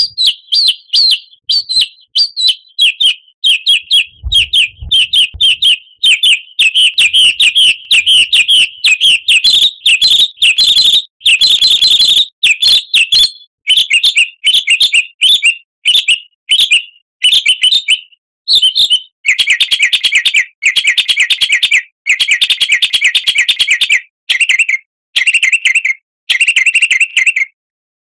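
Songbird lure recording: a songbird sings loud, rapid, high chirps in quick repeated phrases. About two-thirds of the way through it changes to dense, fast trills.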